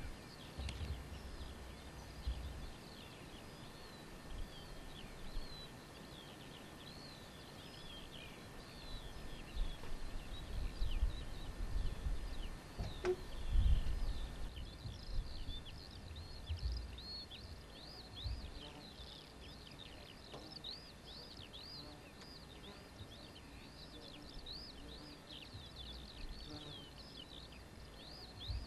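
Open-meadow ambience: many small birds chirping and twittering in quick high notes, growing denser about halfway through. Gusts of wind rumble low on the microphone, strongest around the middle, with a single sharp click.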